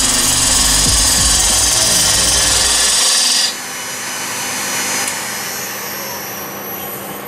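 A gouge cutting a small piece of ash spinning on a wood lathe, a loud steady cut that stops sharply about halfway through. The lathe then runs on alone with a quieter, steady hum.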